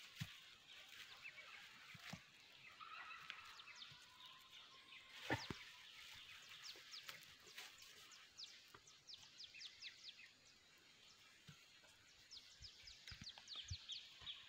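Faint field ambience with small birds giving rapid, high, short chirps, thicker in the second half. Soft thuds of a knife digging into the soil, with one sharp knock about five seconds in.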